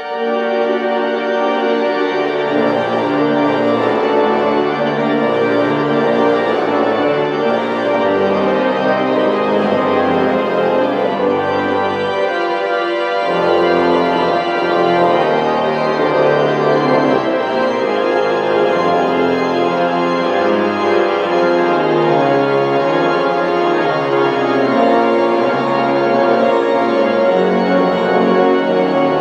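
Hook & Hastings/Steiner-Reck pipe organ playing an improvisation: loud sustained chords that swell at the start, with a bass line entering about two seconds in and stepping up and down beneath them.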